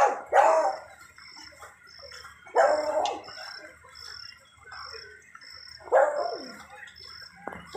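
A dog barking: four single barks a few seconds apart.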